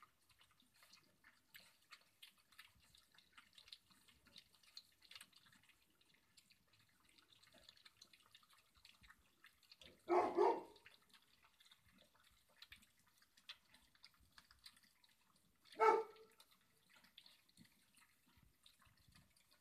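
Labrador puppies eating together from a metal bowl: a constant patter of small clicks, smacks and lapping. Twice a puppy gives a short yelp, about ten seconds in and again around sixteen seconds.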